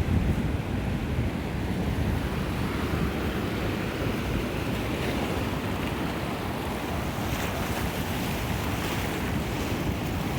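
Sea surf breaking and washing on the shore, a continuous rushing with a brighter hiss building in the second half, mixed with wind buffeting the microphone.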